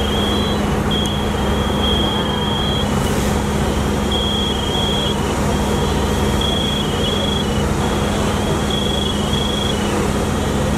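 Fire apparatus diesel engine running steadily at the fire scene, a loud even hum. Over it comes a high electronic beeping that switches on and off in uneven stretches.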